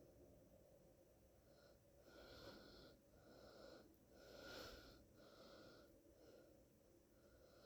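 Faint, heavy breathing close to the microphone: a run of in- and out-breaths, roughly one a second, each with a slight whistle. The loudest breath comes a little past the middle.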